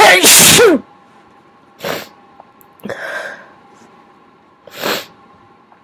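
A single loud human sneeze, a noisy burst ending in a falling voiced 'choo', followed by three short, much quieter breathy sounds over the next few seconds.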